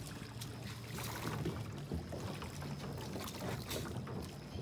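Plastic sit-on-top kayak being boarded at a dock's edge: scattered light knocks and bumps of the hull and paddle as people shift and settle in, over a faint steady low hum.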